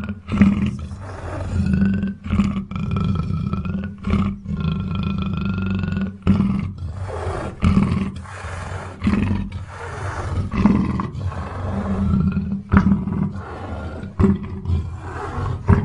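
Big cat vocalizing: a run of repeated rough calls broken by short pauses, some of them carrying a drawn-out higher tone.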